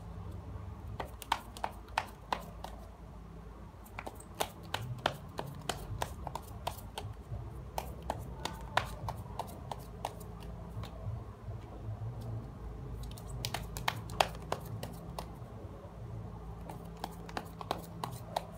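Tarot cards being handled and shuffled by hand: irregular sharp clicks and snaps of card edges that come in clusters with short lulls, over a low steady hum.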